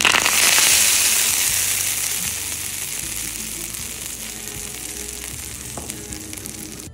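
Hot oil tempering with mustard seeds and curry leaves poured from a small pan onto a dish, sizzling at once as it hits and then slowly dying down.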